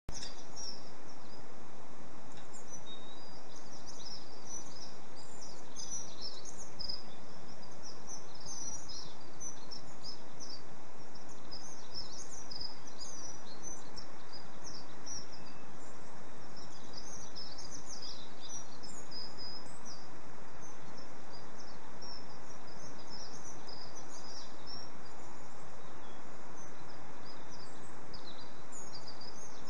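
Many short, high chirps from several small songbirds, scattered throughout over a steady background hiss of outdoor noise.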